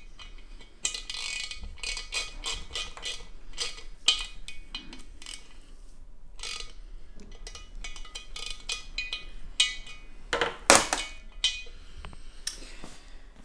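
Small metal parts and tools clicking and clinking as bolts are worked out of a cylinder head on a steel bench. Runs of rapid clicks, with a couple of louder knocks about eleven seconds in.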